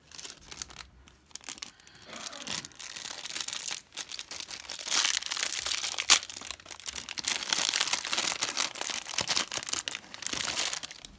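Plastic wrapper of a mini collectable packet being torn open and crinkled by hand, a dense run of crackling with one sharp snap about halfway through.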